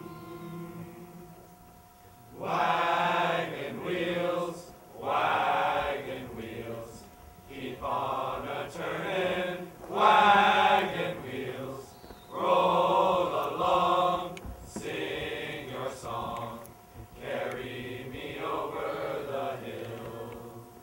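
Men's choir singing in short phrases of about two seconds with brief breaks between them, beginning about two and a half seconds in.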